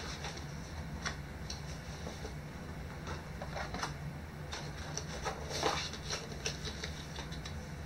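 Paper and card packaging being handled: scattered rustles and light taps, with a louder rustle a little past halfway, over a steady low hum.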